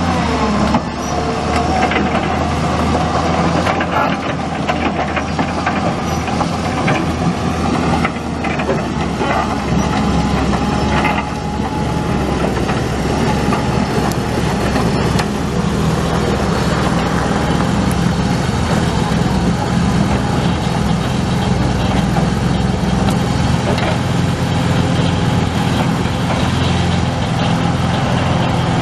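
Isuzu six-cylinder turbo diesel of a JCB JS200 excavator running steadily, with metallic clanks and clicks from the working machine, thickest in the first twelve seconds or so.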